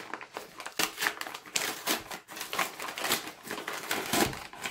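The white paper outer bag of a military field ration being torn open and pulled apart by hand. It makes irregular crinkling and ripping of stiff paper, in quick crackles with a few louder tears.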